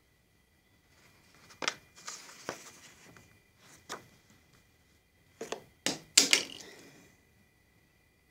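Handling noise: a scattering of sharp clicks and knocks with short rustles, loudest in a cluster about six seconds in. Under them is a faint, steady, high-pitched whine.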